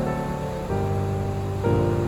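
Background music: gentle instrumental with sustained notes changing chord about once a second.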